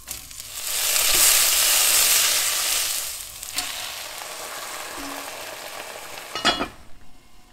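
Sliced onions hitting hot oil in a pot: a loud sizzle that eases after a few seconds into steady frying. A click near the middle, and a short louder sizzle near the end as soy sauce is poured onto the frying liver.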